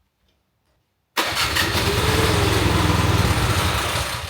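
Small snowblower engine firing on brake cleaner sprayed into the cylinder: it catches suddenly about a second in, runs briefly and begins to fade near the end. It runs only on the starting spray and can't keep going, which the owner takes as likely a carburetor problem.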